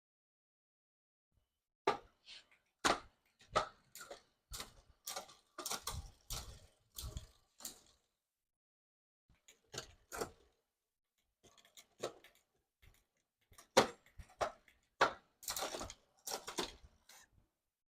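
Irregular clicks and knocks of bicycle parts and tools being handled on an e-bike, several a second in two spells with a short pause between.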